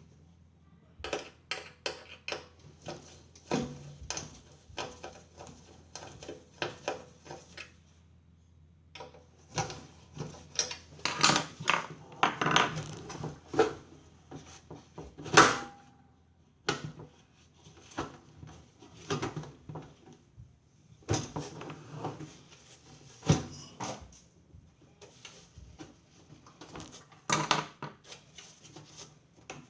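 Irregular clicks, taps and clatter of small hard parts and tools being handled, in uneven clusters with one sharper knock about halfway through.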